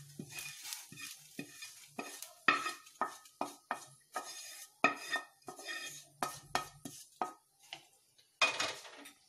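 Wooden spatula scraping roasted cumin seeds out of a kadhai onto a steel plate: a run of short scrapes and knocks of the spatula against the pan, about two or three a second, with a short pause near the end.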